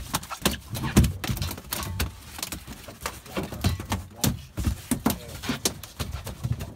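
A freshly landed smoothhound thrashing on a boat's wet deck: irregular slaps and knocks, a few a second.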